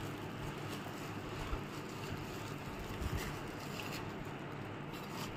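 Steady low hum and hiss of background noise, with a few faint crinkles of plastic bags being handled.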